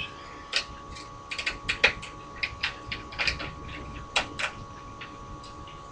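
Irregular sharp clicks and taps of small hard parts being handled: screws and plastic pieces of an Xbox 360 being set down and moved during disassembly.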